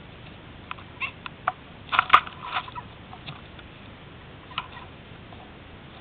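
Wild turkey moving right at a ground-level camera: a string of sharp taps and scrapes from its feet on and around the camera, the loudest cluster about two seconds in.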